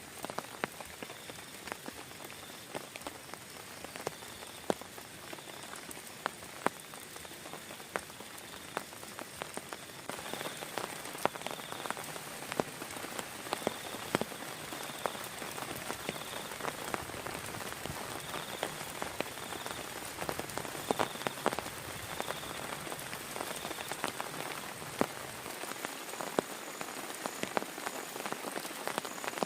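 Steady heavy rain, with many separate drops striking sharply close by over the hiss; the rain grows a little louder about ten seconds in.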